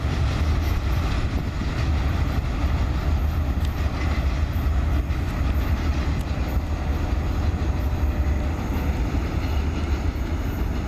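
Norfolk Southern freight train's open hopper cars rolling along the rails, a steady low rumble.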